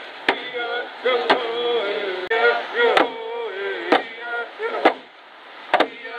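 Wooden box drum struck in a slow steady beat, about one hit a second, with voices singing along.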